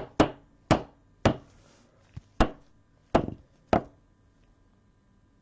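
A string of about seven sharp plastic knocks and clicks over four seconds as hard 55-point trading-card holders are handled and set down, then they stop.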